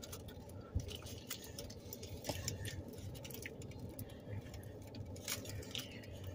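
Foil burrito wrappers crinkling while being held and bitten from, with scattered small clicks and rustles over a low steady hum.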